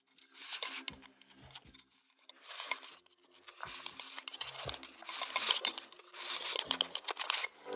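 Close-up eating noises: crunchy chewing and mouth clicks in irregular bursts, with short pauses between them.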